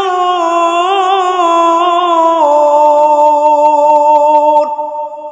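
A man's voice chanting one long held note through a microphone, wavering a little and stepping down in pitch about two and a half seconds in. It breaks off near the end and leaves a fading echo.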